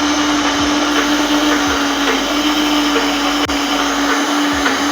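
SilverCrest countertop blender running at a steady high speed, a constant motor hum over a whirring rush, grinding roasted peanuts into smooth peanut butter.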